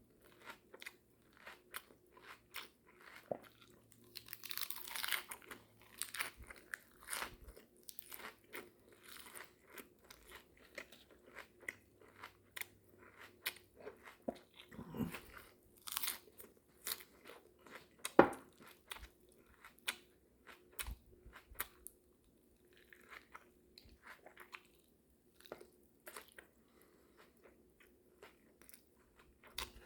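A person eating with their mouth open: close, irregular chewing and biting with many short wet mouth clicks, busier about four to six seconds in, and one sharp loud click about eighteen seconds in.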